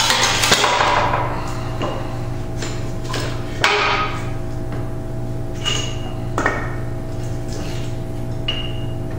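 Steel parts clinking and knocking with short rings, about six times, the loudest about three and a half seconds in: the old pinion gear, its pressed-off bearing and the bearing separator being lifted out and set down on a shop press. A steady low hum runs underneath, and the first second is a busier rattle as the pressing finishes.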